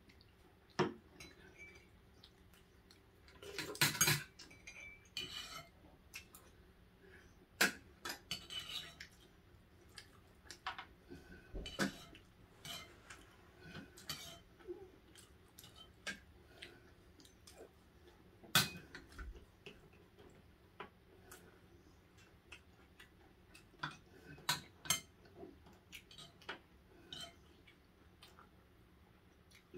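Scattered clicks and clinks of utensils against food containers during a takeout meal, with a couple of short rustling bursts, the loudest about four seconds in.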